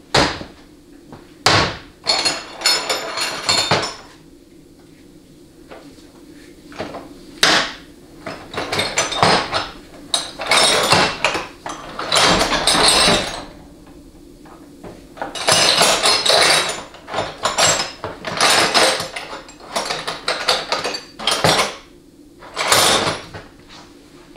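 Metal hand tools clattering and clinking in irregular bursts, with a few single sharp knocks, as tools are handled and sorted.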